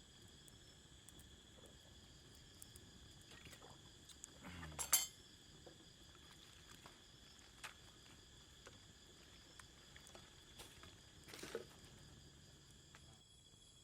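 Faint steady high-pitched drone of forest insects, with a short sharp clatter about five seconds in and a softer one near the end.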